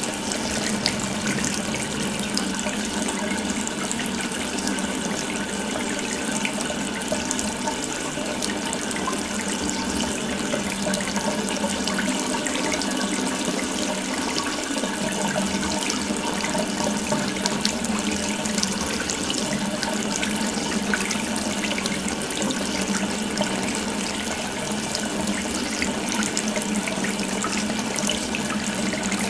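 Water running steadily from an open tap into a sink, a continuous even splashing hiss.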